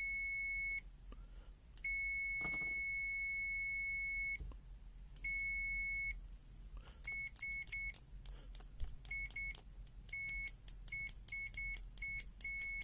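Multimeter continuity buzzer beeping with a steady high tone: three long beeps in the first six seconds, then a run of short, broken beeps.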